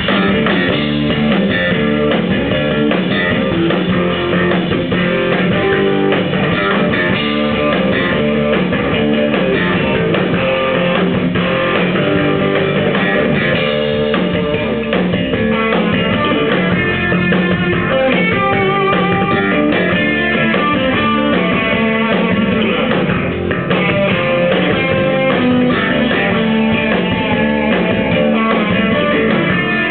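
Live band of electric bass, electric guitar and drums playing together. The full band comes in right at the start and keeps going steadily.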